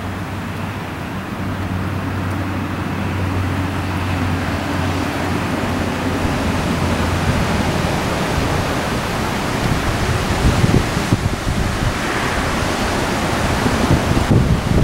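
Wind rushing over a Sony HDR-CX160 camcorder's built-in microphone. It is steady at first, over a low hum, then turns gusty with low buffeting in the second half.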